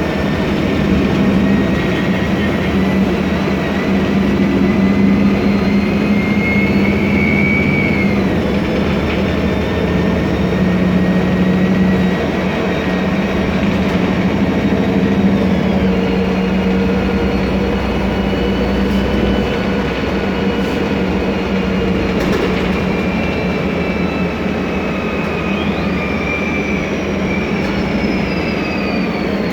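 Ride sound from inside a 2007 MAN Lion's Classic city bus: its CNG engine running under a steady drone, with the whine of its Voith DIWA 864.3 automatic gearbox. The whine falls in pitch about eight seconds in, then rises and falls again near the end as the bus speeds up and slows, and air rushes in through the open ventilation.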